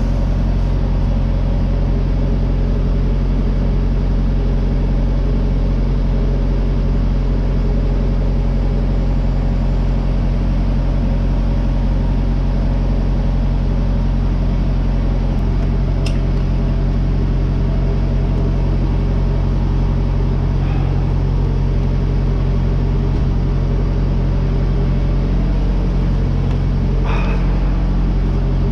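Steady low machine hum at a diesel pump while a plastic jerry can is filled from the nozzle, with a sharp click about halfway through and a brief clatter near the end.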